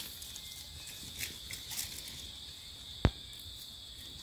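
Insects droning steadily in a high, even tone, with faint rustling of dry leaf litter as a hand picks a mushroom. About three seconds in comes a single sharp tap, the loudest sound here.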